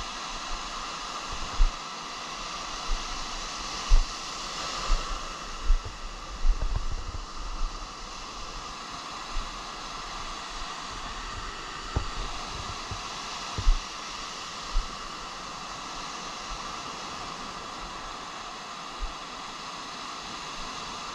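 Ocean surf breaking and washing up over wet sand in a steady hiss, swelling a little about five seconds in, with scattered short low thumps against the microphone.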